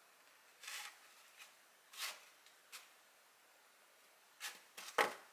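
Slices of white sandwich bread handled and set into a molded-pulp clamshell lunch box: a handful of soft rustles and light taps. The sharpest tap comes a little before the end.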